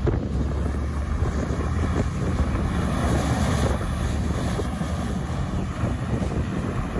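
Griffon 12000TD hovercraft running on its air cushion as it moves across the beach: a steady low rumble from its engines, propellers and lift fans, under a rushing of air, with wind buffeting the microphone.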